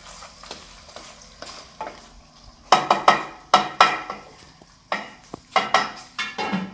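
Meat sizzling quietly in a steel karahi over a wood fire, then a run of sharp metallic clanks and rattles that ring briefly, as the pot is stirred and its steel lid is handled and set on.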